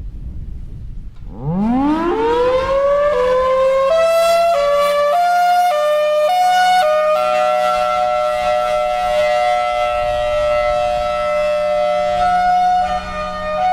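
Federal Signal Thunderbolt 1003 outdoor warning siren winding up from a low pitch about a second and a half in, then sounding its hi-lo signal. The high and low tones switch at uneven intervals and for several seconds sound together, giving this unit's 'drunk' hi-lo.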